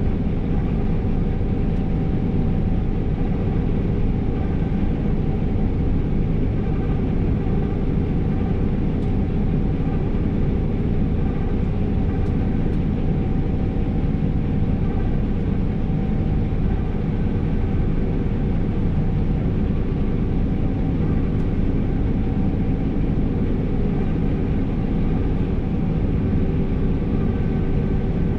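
New Holland CR 5.85 combine harvester heard from inside the cab while harvesting: the engine and threshing machinery run as a steady, unbroken drone with a few faint steady whines over it.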